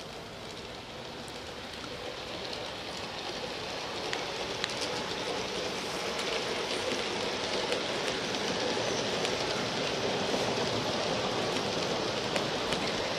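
Piko BR 64 G-scale garden-railway model train with a long passenger consist rolling past on outdoor track. The wheels make a steady rolling noise with scattered clicks over the rail joints, growing louder as the train comes closer.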